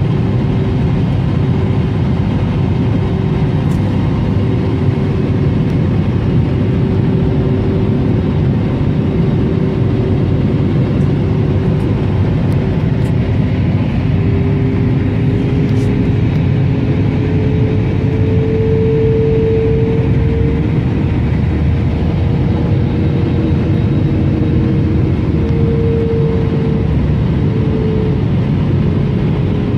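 Steady jet engine and airflow noise inside the cabin of an Airbus A321neo in descent, with an engine hum that rises slightly in pitch about halfway through and eases back down near the end.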